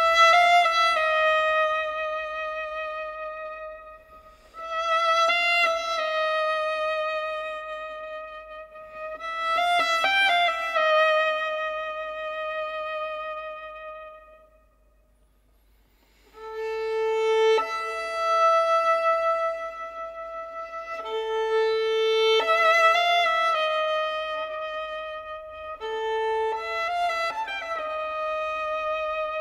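Slow instrumental background music: long held melodic notes in phrases of a few seconds, with a brief pause about halfway through.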